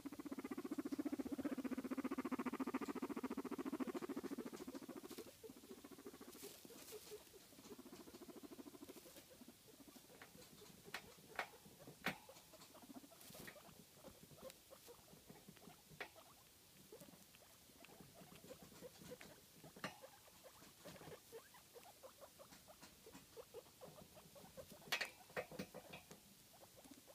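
Guinea pigs: a low, vibrating rumble for about the first five seconds, then quieter rustling in hay broken by scattered sharp clicks, with a cluster of clicks near the end.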